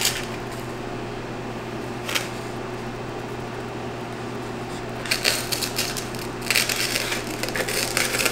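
A glass rim scraping and grating in a bowl of sugar as it is twisted to coat the rim, in gritty bursts about five seconds in and again near the end, with a single tap about two seconds in. A steady low hum runs underneath.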